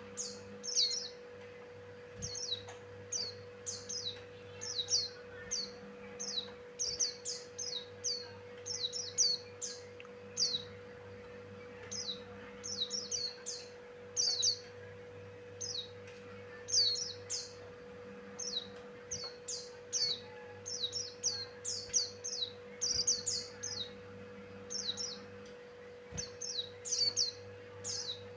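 White-eye (pleci) singing: a fast, continuous run of short, high chirps and twitters in quick clusters, several a second with brief gaps. A faint steady hum sits underneath.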